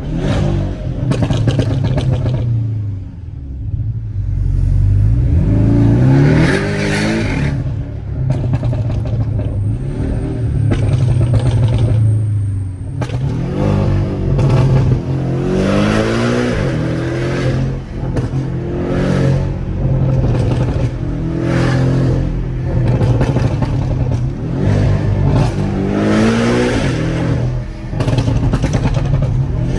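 Porsche 718 Cayman with a Stage 2 remap and stainless exhaust accelerating hard. The engine revs climb and drop back several times as it pulls through the gears, with sharp crackles from the pops-and-bangs tune.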